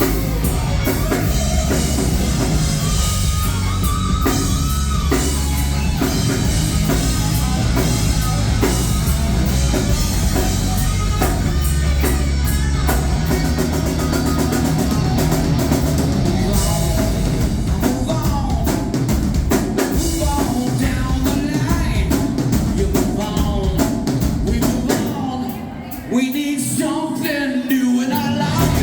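Live rock band playing a song with a singer, electric guitar and drum kit. About three-quarters of the way in the bass and drums drop out for a couple of seconds, then come back in.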